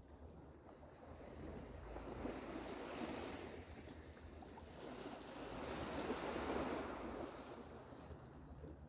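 Small sea waves washing up a sandy shore, the surf swelling twice.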